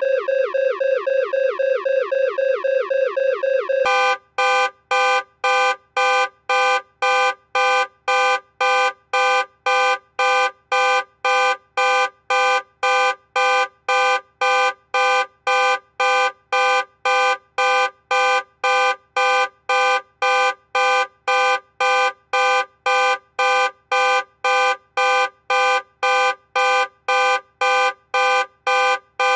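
Electronic alarm. A fast warbling siren of repeated falling chirps, about five a second, cuts abruptly about four seconds in to a loud on-off beeping, about two beeps a second, each beep a steady, buzzy chord of several tones.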